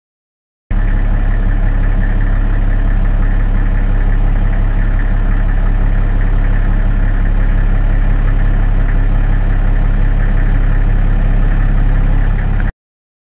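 An engine idling steadily, a loud, even low hum, with faint short high chirps scattered over it; it starts and stops abruptly.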